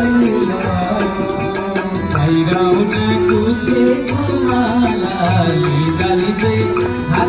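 Instrumental passage of a Nepali bhajan: a melody line played over a tabla beat, with a fast, steady high ticking keeping time.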